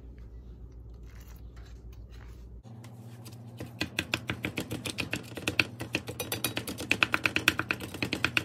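Metal spatula chopping and scoring a block of raw ground chicken in a cast iron skillet: a quick run of tapping clicks on the pan, several a second. It starts about three seconds in and grows louder.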